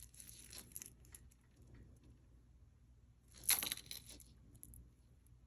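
Faint clicks and clinks of metal costume jewelry being handled, with one louder short clatter about three and a half seconds in.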